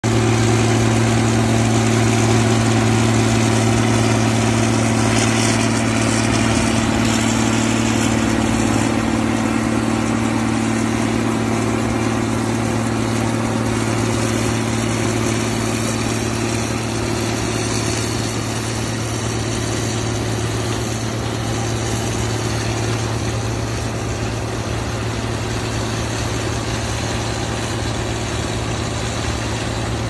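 John Deere 4840 tractor's six-cylinder turbo diesel running steadily under load while powering a John Deere 7701 pull-type combine through the PTO, the combine's threshing machinery running as it harvests corn. A steady, dense mechanical hum that grows slowly a little fainter.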